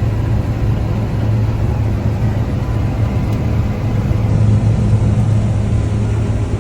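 Combine harvester running steadily at work, a constant low engine hum under an even mechanical noise.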